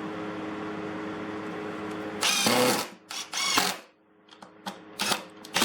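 Ryobi 18V brushless three-speed impact driver driving small screws into wood in short bursts of whirring and hammering, one screw after another, after a steady hum.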